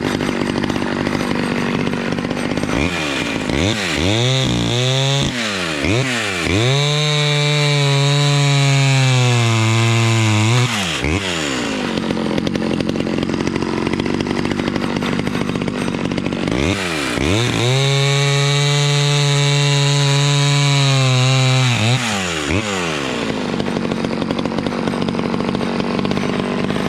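Stihl 011 two-stroke chainsaw running and cutting firewood. The throttle is blipped a few times, then the saw is held at full revs through two cuts of about four to five seconds each, dropping back to a lower speed between them.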